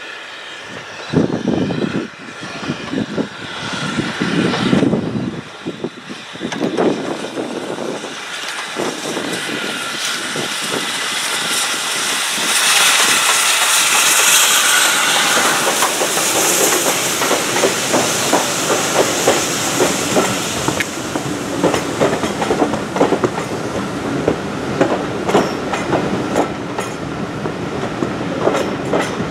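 Steam locomotive passing with a train: a few heavy exhaust beats at first, then a rushing hiss that swells as it draws level about twelve seconds in. After that comes the clatter of carriage wheels over rail joints.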